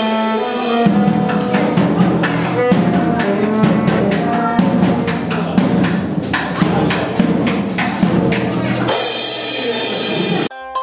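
A small school wind band playing live with a drum kit: brass and saxophone hold notes over a steady run of drum and cymbal hits. The music cuts off suddenly near the end.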